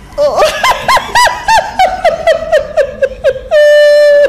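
A woman laughing hard in a quick run of high-pitched laughs, about four a second, that ends in one long, high, held squeal near the end.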